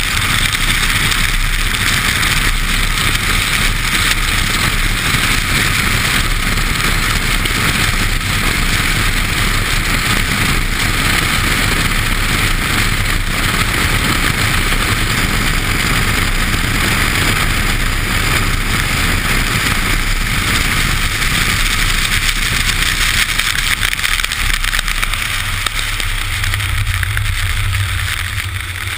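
Car driving fast on a wet track, heard from a camera mounted outside at wheel height: a steady rush of wind and the hiss of the tyre throwing spray, over a low engine rumble. Near the end the noise eases a little and a steady low hum comes through.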